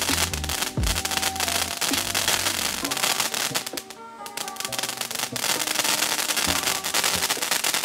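Freedom Fireworks 'Flower Patch Kids' consumer fountain spraying sparks and firing crackling stars: a dense, continuous crackle that thins briefly about four seconds in, then picks up again. Background music plays underneath.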